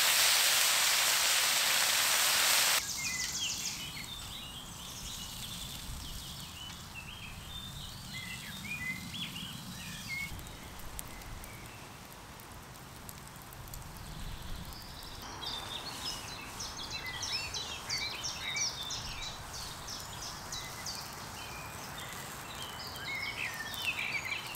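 Bacon and sausages sizzling loudly on a cast iron griddle over a wood fire, cutting off abruptly about three seconds in. After that, a much quieter soft sizzle of food frying outdoors, scattered with short high chirps and ticks.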